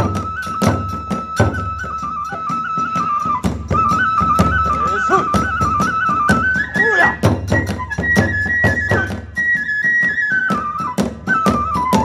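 Kagura festival music: a Japanese bamboo transverse flute (fue) plays a high melody that steps up and down, over quick, steady drum strokes and hand cymbals.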